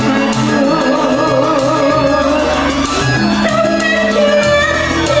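Live band music: a woman singing into a microphone, holding wavering notes, over keyboard and a steady bass line.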